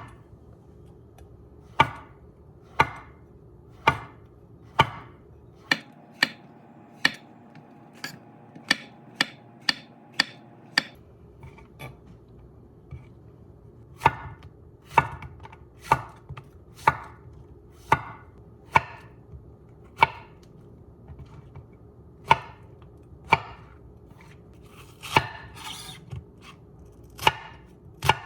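Knife chopping on a cutting board in single, evenly spaced strokes about one a second, quickening to about two a second for a few seconds, then pausing for a couple of seconds before the steady strokes resume.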